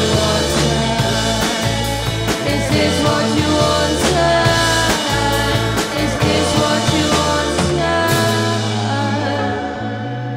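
Rock band playing live, with drums, bass and singing; a cymbal crash about eight seconds in, after which the band thins out.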